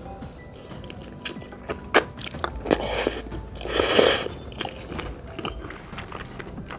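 Close-miked mouth sounds of someone eating cheesy spaghetti with meatballs: chewing with scattered wet clicks, and two louder noisy stretches near the middle.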